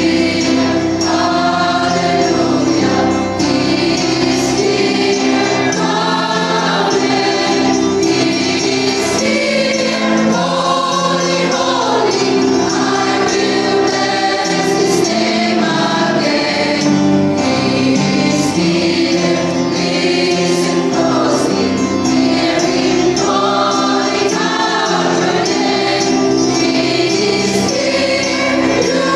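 Mixed church choir of women's and men's voices singing a gospel medley together in sustained phrases.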